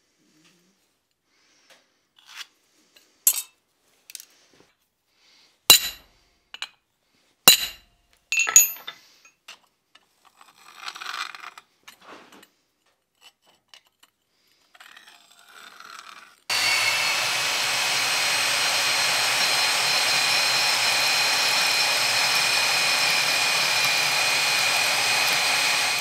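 Light metal clicks and scrapes of marking tools on the steel plate: ruler, scribe and dividers. About 16 seconds in, a portable bandsaw (Portaband) starts suddenly and runs steadily with a whine, cutting a disc from 1/4-inch steel plate.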